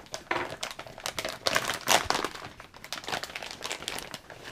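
Vacuum-sealed plastic bag of PLA filament crinkling as it is opened and handled, a dense run of irregular crackles, loudest around the middle.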